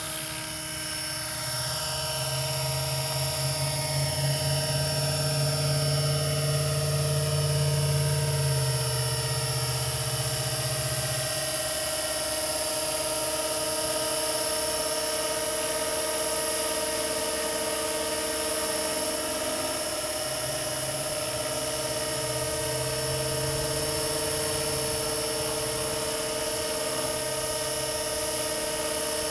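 Scale radio-controlled AS350 model helicopter in flight: a steady high whine from its motor and gears over the chop of the rotor blades. The pitch falls over the first several seconds as it passes, and the low rotor throb swells and fades as it manoeuvres.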